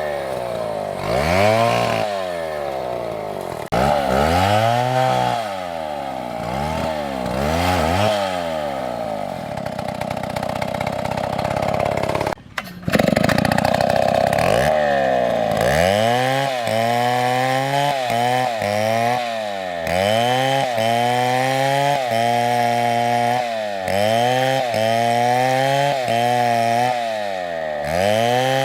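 Chainsaw engine revving up and dropping back over and over as it cuts, rising and falling about once a second in the later part. There is a brief dropout with a sharp click about twelve seconds in.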